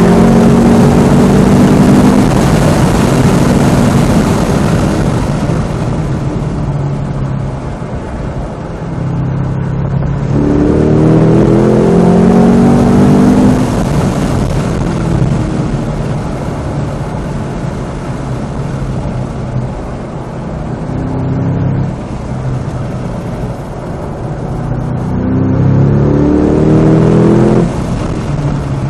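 The 2025 Cadillac CT5-V Blackwing's supercharged 6.2-litre V8 pulling hard on track, its pitch climbing through the revs near the start, again about ten seconds in and again near the end. Between the pulls the engine runs quieter at lower revs off the throttle, and the last pull cuts off sharply just before the end.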